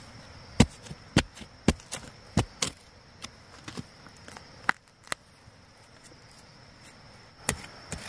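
A digging tool striking into the ground while cassava roots are dug up. It gives a string of sharp, irregular blows about twice a second, then pauses for about two seconds before one more blow near the end.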